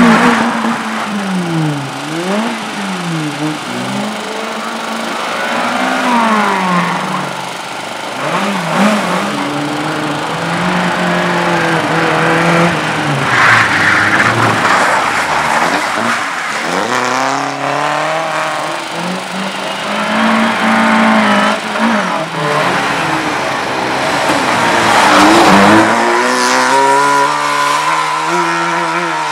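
Slalom race car's engine revving hard and dropping again and again as it is driven through the course, the pitch sweeping up and down with gear changes and lifts. Tyres squeal in bursts, loudest about halfway through and again near the end.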